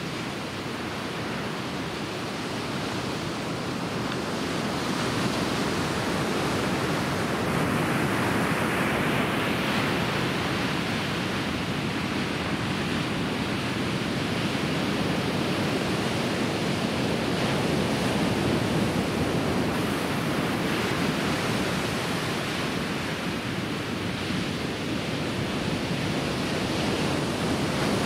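Ocean waves breaking and whitewater washing up the beach: a steady rushing noise that grows louder about five seconds in.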